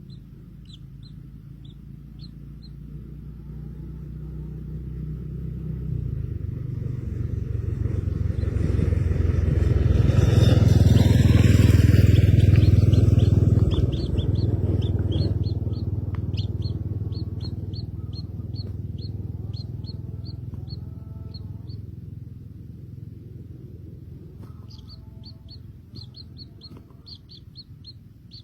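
A motor vehicle passing: its engine grows louder over about ten seconds, is loudest around the middle, then fades away. Small birds chirp in quick, short notes before and after it goes by.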